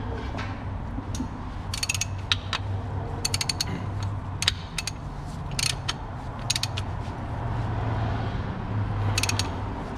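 Half-inch-drive ratchet clicking in several short bursts as it runs the rear differential's drain plug back in, turned by hand between bursts.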